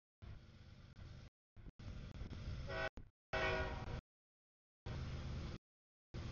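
CSX diesel freight locomotive approaching a grade crossing: engine rumble, then its multi-tone air horn sounding from about three seconds in and again near the end as the crossing warning. The sound cuts out completely several times in between.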